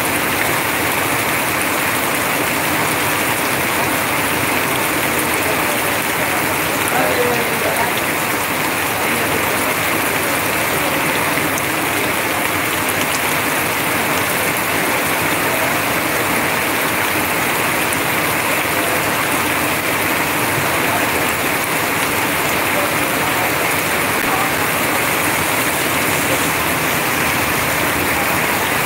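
Heavy rain falling steadily, with runoff pouring off a roof edge in streams.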